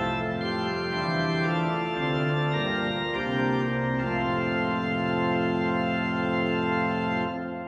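Pipe organ, a Hauptwerk virtual organ sampled from the Father Willis organ of Hereford Cathedral, playing full sustained chords that move for a few seconds. About four seconds in it settles on the final chord and holds it. The chord is released near the end and begins to die away in the reverberation.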